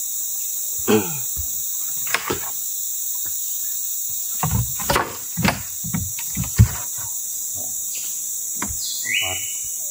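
Ulin (ironwood) planks knocking and clattering as they are lifted and shifted, with scattered knocks about a second in, around two seconds in and in a cluster between about four and a half and seven seconds. A steady high insect drone goes on behind.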